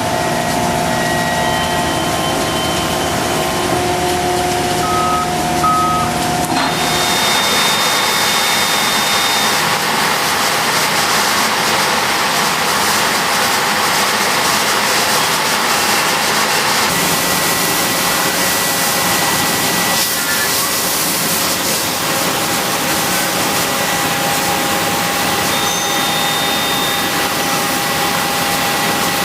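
Steady, loud machine-shop din from an automated machining cell of Makino a81 horizontal machining centers, with several steady whining tones and a few short beeps. The mix of noise and tones changes abruptly about seven seconds in and again around seventeen and twenty seconds.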